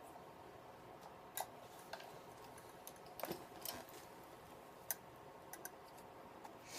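Light, irregular clicks and taps of arrows and a bow quiver being handled, about half a dozen over several seconds, the sharpest a little after the middle.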